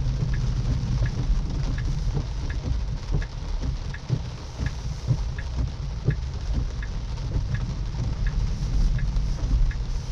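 Turn-signal indicator ticking evenly, about once every 0.7 seconds, heard inside the car's cabin. Underneath is the steady rumble of tyres on a wet road and rain on the car.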